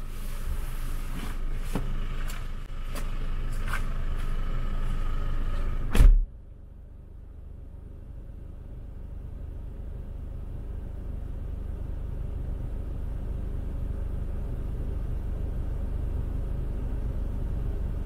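Low, steady rumble of a Jeep Wrangler driving, slowly growing louder, after scattered clicks and knocks and one loud sudden knock about six seconds in.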